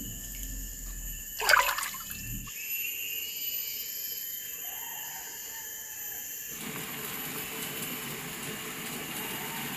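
A brief sharp sound about a second and a half in, then, from about two-thirds of the way through, water in a saucepan bubbling at a hard rolling boil. Thin steady high insect calls ring underneath.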